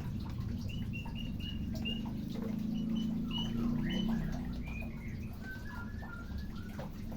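Aviary birds giving many short, quick chirps while they are being fed, over a low steady hum.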